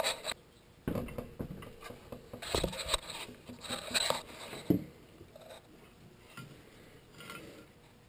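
Metal electric motor shell with its stator windings being handled and turned over: scattered knocks, clicks and light rattles of metal, loudest in the first five seconds and fainter after.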